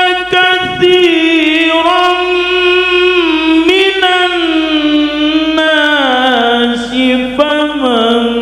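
A man reciting the Qur'an in the melodic tilawah style into a microphone, holding long ornamented notes that step lower in pitch over the second half.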